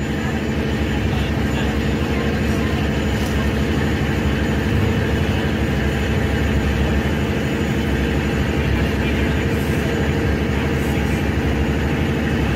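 Passenger ferry's diesel engines running steadily under way: a constant low drone with a steady rushing noise over it.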